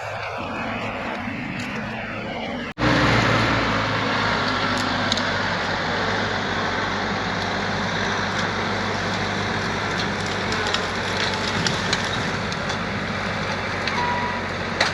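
Bobcat E42 mini excavator's diesel engine running steadily at work, with scattered sharp cracks over it. The sound jumps abruptly louder about three seconds in.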